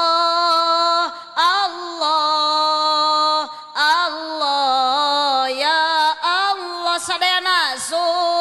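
A woman chanting "Allah" in long, drawn-out melodic phrases, leading a dhikr recitation, with short breaths between phrases.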